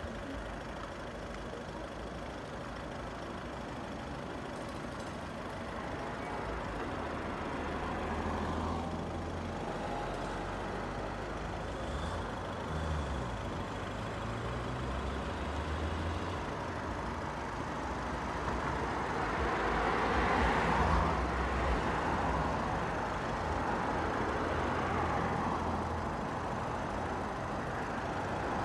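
Outdoor traffic noise: a low vehicle engine hum that comes and goes and shifts in pitch, with a louder swell about twenty seconds in as something passes.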